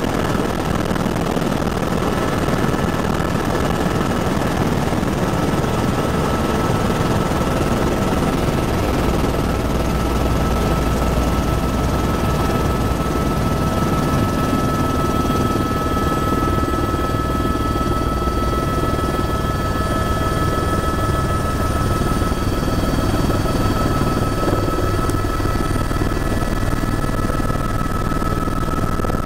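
Helicopter engine and rotor running steadily, heard from inside the cabin: a dense constant drone with a steady high whine over it.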